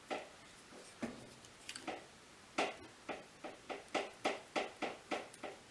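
A run of light clicks and taps from handling a fuse and tools on an inverter circuit board. A few come singly at first, then a quicker run of about three to four a second starts about two and a half seconds in.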